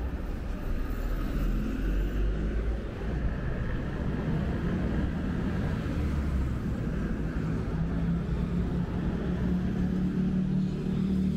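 Road traffic passing on a city street, a steady low rumble, with one vehicle's engine hum growing stronger in the second half.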